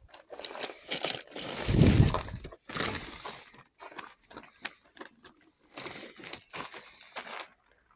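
Shopping bags being handled and pulled out of a car boot: paper and plastic bags rustling and crinkling in irregular bursts, with one heavy thump about two seconds in.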